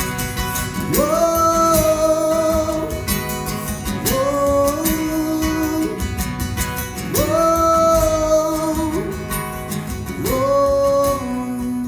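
Worship band with acoustic guitar playing while voices sing a wordless "whoa" refrain in long held notes, each phrase scooping up into its pitch about every three seconds.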